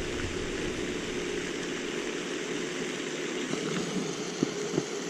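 Steady hissing outdoor background noise, with two faint clicks near the end.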